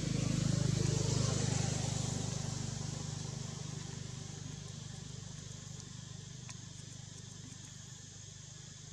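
A motor vehicle engine hums as it passes, loudest about a second in and then slowly fading away. A steady high hiss runs behind it.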